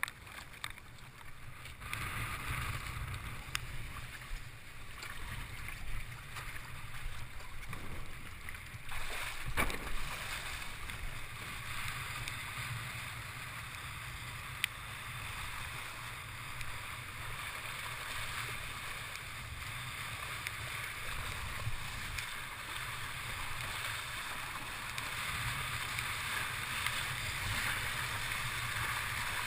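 Wind buffeting the boom-mounted camera's microphone and water rushing under a windsurf board as it sails fast across choppy water, getting louder toward the end. A few knocks about ten seconds in.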